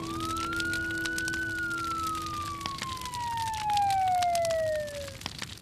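A siren-like whistling tone rises for about a second, then slowly falls in pitch over about four seconds before stopping, over scattered sharp crackles and pops.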